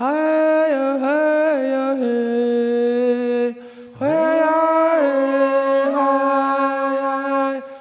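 A single voice chanting wordless held notes in two long phrases, with a short break about three and a half seconds in. Each phrase opens with a slight upward scoop into the note.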